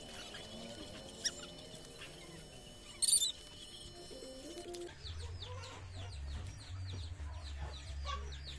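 Chickens clucking in the background. About five seconds in, a corded electric hair clipper's low motor hum starts and runs steadily.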